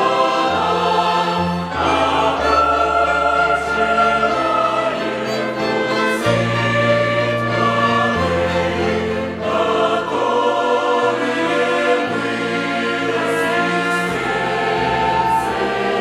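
Mixed church choir singing a hymn in sustained chords, accompanied by a violin orchestra with bass notes underneath.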